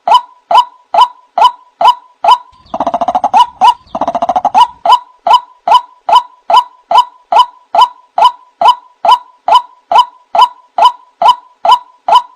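White-breasted waterhen calls played as a bird lure: a short note repeated steadily about twice a second, broken a few seconds in by two harsh, rattling bursts.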